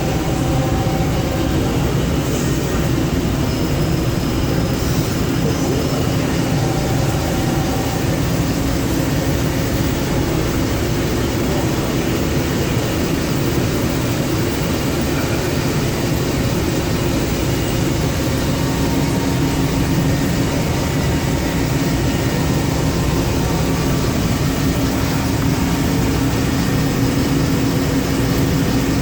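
1988 Mori Seiki SL4 two-axis CNC lathe running and cutting parts: a loud, steady machine noise with a humming tone that fades through the middle and comes back strongly in the last third.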